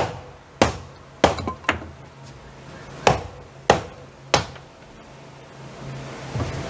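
Hammer striking and knocking loose the wooden framing at the bottom of an old window opening in a stud wall: seven sharp blows in two groups, four in quick succession and then three more a second or so apart.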